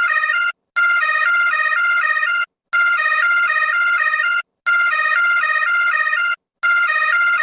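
Emergency alert alarm tone: high electronic beeps stepping quickly back and forth between a few pitches, repeated in bursts just under two seconds long with short silent breaks between them.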